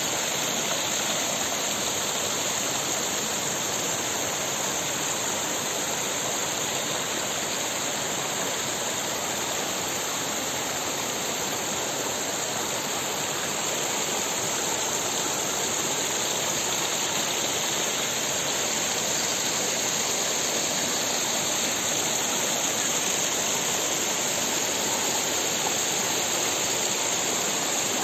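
Shallow mountain stream running over rocks and small cascades, a steady rush of water.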